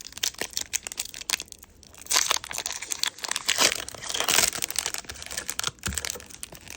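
Foil Pokémon booster pack being torn open and crinkled by hand, with the crackle of the wrapper and the cards inside; the crinkling is loudest in the middle.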